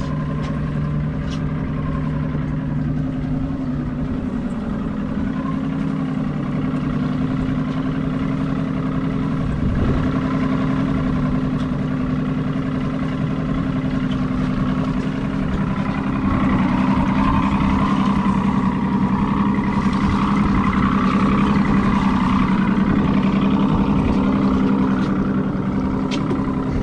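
Boat's outboard motor running steadily, its pitch shifting a few seconds in and getting louder about two-thirds of the way through.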